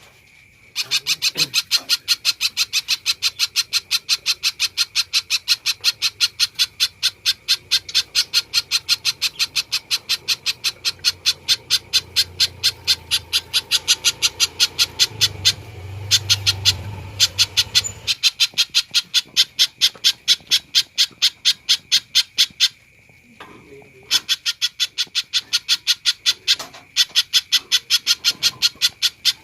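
Spiderhunter calling in long, fast, even series of sharp notes, about four or five a second, with two short breaks.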